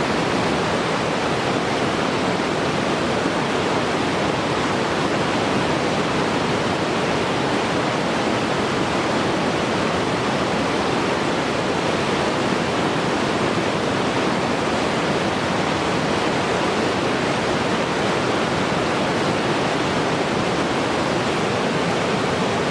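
Mountain river flowing fast over rocks: a steady, even rush and gurgle of water.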